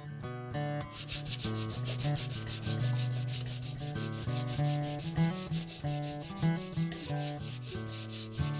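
Hand sanding block rubbed back and forth along a glued bamboo rod blank, taking off excess glue and the enamel: quick scraping strokes, several a second, starting about a second in, with guitar music underneath.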